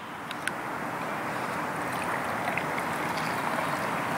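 Fizzy soft drink poured from a can into a glass: a steady fizzing hiss that builds slightly, with a few faint ticks.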